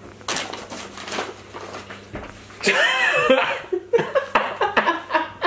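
Men laughing: breathy at first, then louder, pitched laughter from about two and a half seconds in.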